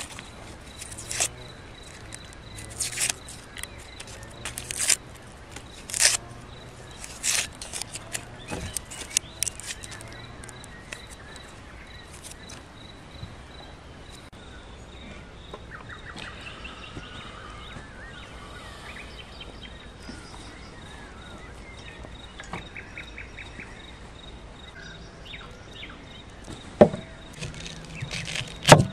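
A knife peeling dry onion skins: irregular sharp crackles and scrapes for roughly the first ten seconds, then quieter. Birds chirp and a steady high insect tone runs underneath, and near the end the knife knocks sharply twice on a wooden chopping board as it cuts into an onion.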